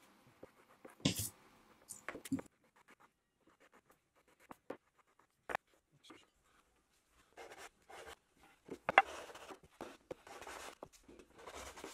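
Faint, intermittent scraping strokes of a block plane cutting along wooden edges, chamfering the corners of legs and rails, with a few light knocks of the tool on the bench. The strokes come closer together and run longer about two thirds of the way through.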